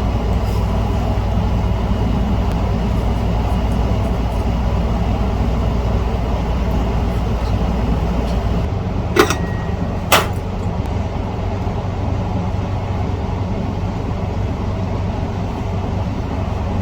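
Steady machine-like hum and hiss, its low drone dropping away a little over halfway through, with two sharp clicks about a second apart just after.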